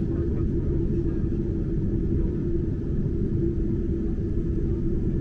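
Cabin noise inside a Boeing 747-8 taxiing on the ground: a steady low rumble from its four GEnx-2B engines at taxi power and the rolling airframe, with a steady hum running through it.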